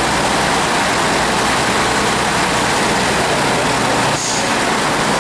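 AEC Regent III RT double-decker bus's diesel engine running steadily as the bus pulls slowly forward.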